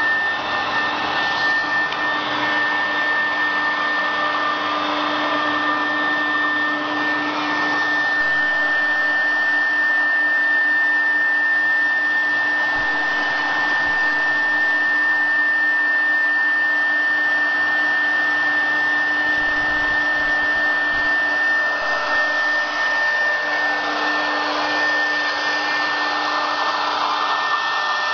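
4-axis CNC router running, its spindle giving a steady high whine as the bit carves a moulding on the rotary axis, with a cutting hiss that swells near the start and again near the end.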